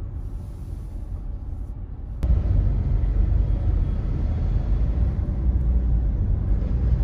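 Low road and engine rumble inside a car's cabin in traffic, stepping up suddenly about two seconds in and staying louder as the car gets moving.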